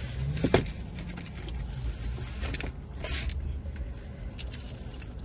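Paper food boxes and wrappings rustling and crinkling as fried chicken is taken out, with a sharp knock about half a second in. Under it is a steady low hum in the car's cabin.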